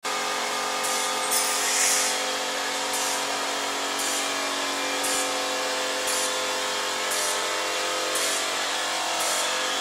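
MR150 band saw blade sharpener running: a steady motor and grinding-wheel whine, with a short grinding rasp about once a second as the wheel works the blade's teeth one after another.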